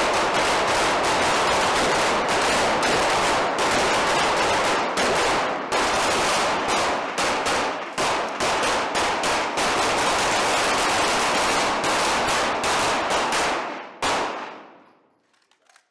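Several Glock 17 pistols firing at once in rapid, overlapping shots, a near-continuous volley that stops about 14 seconds in with one last shot. The shots echo off the walls of an indoor range, and the echo dies away over about a second at the end.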